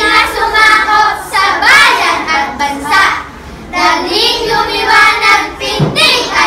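A group of children reciting a Filipino poem together in unison, their voices chanted almost like singing, in phrases with a short pause about three seconds in.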